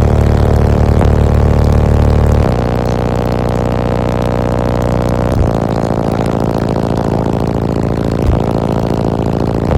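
Four Skar ZVX-15v2 15-inch subwoofers playing long, loud, deep bass notes with strong overtones, the pitch shifting three times.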